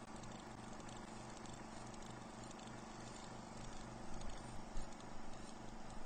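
Faint steady hiss and hum with a soft, even low pulse about four times a second, like a small machine running. A few louder knocks come near the end.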